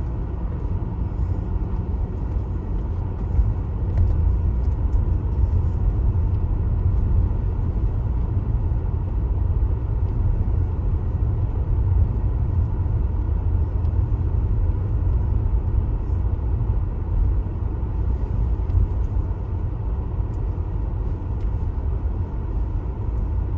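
Car driving on the road, a steady low rumble of engine and road noise.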